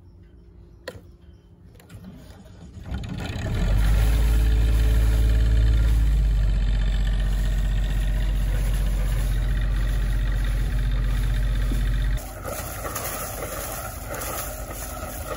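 Volvo Penta marine diesel engine started from cold: a click, then after a short pause it catches about three seconds in and settles into a loud, steady idle. From about twelve seconds in, the engine drops back and water splashes out of the hull exhaust outlet.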